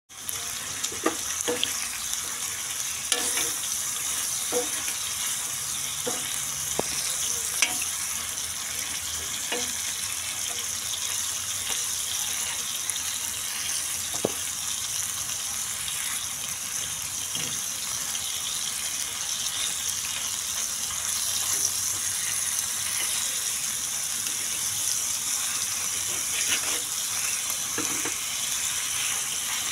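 Chicken pieces sizzling in hot oil on a flat griddle, a steady hiss, while a flat spatula stirs them, clicking and scraping against the pan now and then, most often in the first ten seconds.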